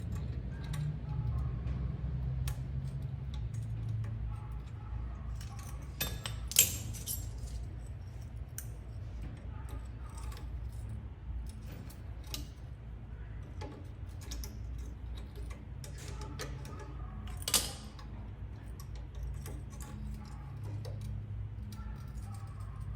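Scattered small metallic clicks and clinks over a low steady rumble, with two louder, sharper clinks, one about six seconds in and one about seventeen seconds in.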